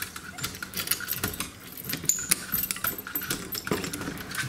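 A bunch of keys on a lanyard jangling, with sharp metal clicks as a key is worked in a brass deadbolt lock to unlock a door.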